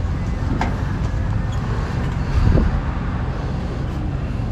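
Steady low outdoor rumble, with a brief louder swell about two and a half seconds in.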